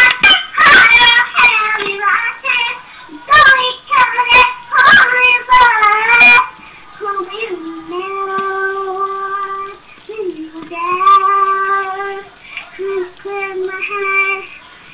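A young girl singing a pop song, mumbling words she doesn't know. For the first six seconds she sings loudly in short, uneven phrases with a few sharp clicks. After that she holds long, steady notes more quietly.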